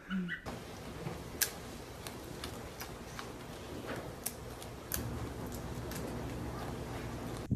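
A wallaby crunching on food held in its forepaws: irregular sharp clicks over a steady hiss.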